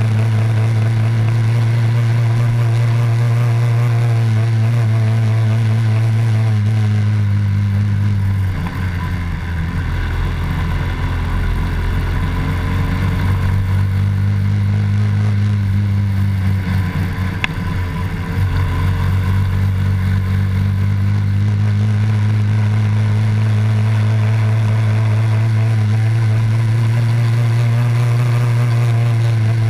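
Honda Dax 70's small four-stroke single-cylinder engine running steadily at cruising throttle, heard from on board. About eight seconds in the throttle closes and the engine note drops away for a few seconds before picking back up, with another short let-off a little later.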